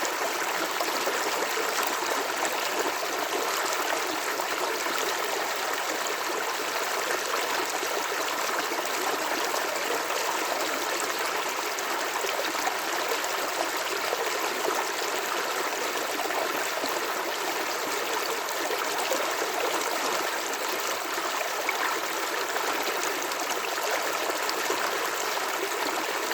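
Running water flowing steadily, a constant even rush.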